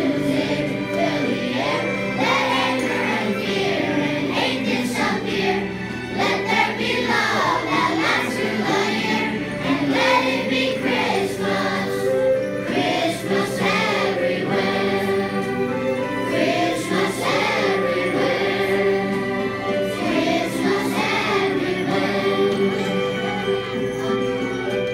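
A choir of primary-school children singing with instrumental accompaniment.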